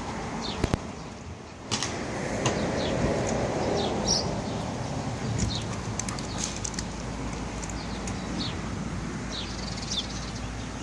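Pigeons' wings flapping, starting suddenly in a burst a little under two seconds in, with short high bird chirps scattered throughout. Two sharp clicks come just before the flapping.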